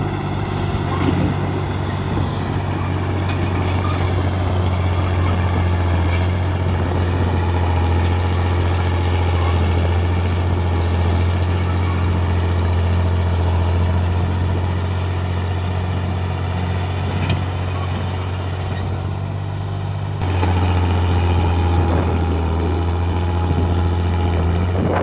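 FiatAllis AD9 crawler tractor's diesel engine running steadily under work, a deep even drone. It eases slightly a few seconds before the end and comes back a little louder soon after.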